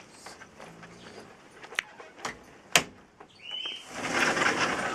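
Young low-content wolfdog pups give a short high squeak about three and a half seconds in. A few sharp clicks come before it, and a stretch of rustling noise follows near the end.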